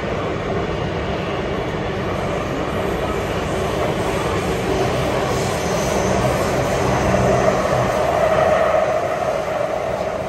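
Singapore MRT train running at speed, heard from inside the carriage: a steady roar of wheels on rails and running gear that swells slightly about seven seconds in.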